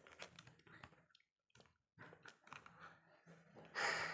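Faint small clicks and taps of a plastic spoon against a small plastic cup of jelly, with soft eating sounds, and a brief louder hissing noise near the end.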